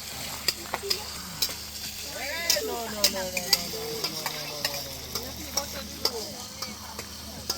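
Food frying and sizzling, with frequent short sharp clinks of a metal utensil. A faint voice rises and falls in the background about two seconds in.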